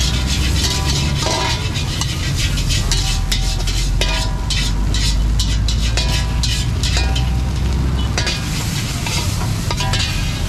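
Fried rice sizzling in a wok while a metal spatula scrapes and clanks against the pan in quick, irregular strokes, with a steady low rumble underneath.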